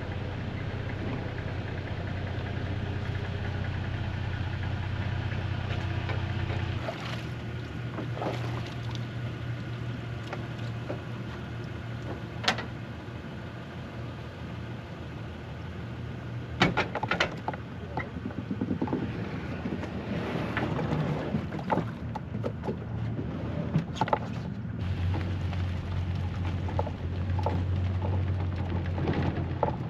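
Fishing kayak out on the water: a steady low hum under wind and water noise, with a few sharp knocks scattered through the middle.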